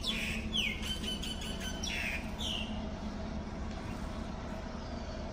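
A bird calls a quick series of short notes, each sliding downward, during the first two and a half seconds, then falls silent. A steady low hum runs underneath.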